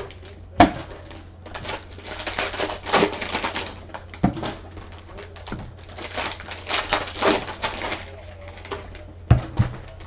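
Crinkling plastic wrap and foil card packs being handled and opened, broken by three sharp knocks of the box or packs against the table, the loudest near the end.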